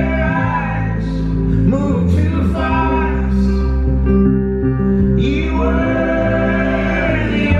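Live acoustic rock performance: a man singing over a strummed acoustic guitar, with steady low sustained backing tones underneath.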